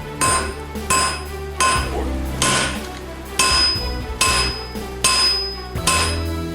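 A 4-pound blacksmith's hammer striking hot steel on an anvil in a steady rhythm, about one blow every 0.8 seconds, each blow ringing briefly. The blows are drawing out the width of a knife blade forged from a pipe wrench jaw.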